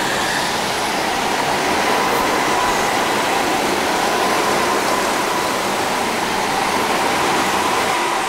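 Go-karts running laps on an indoor track, a steady mechanical drone with a faint steady high tone, echoing in a large hall.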